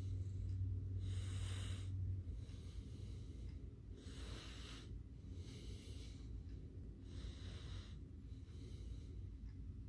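Slow, rhythmic breathing: soft breaths about every second and a half, with a steady low hum that stops about two seconds in.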